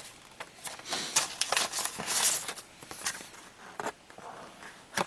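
Paper rustling and crinkling in short crackly bursts as an envelope is slit open and a card is drawn out, busiest about two seconds in.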